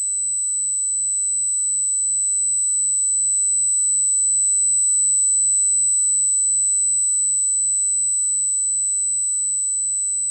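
Synthesized space sound effect: a steady, high-pitched electronic tone with a faint low hum beneath, slowly swelling louder toward the middle and easing off again.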